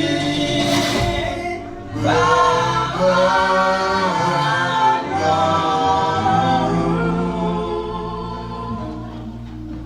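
Choir singing a hymn in long held notes, phrase after phrase.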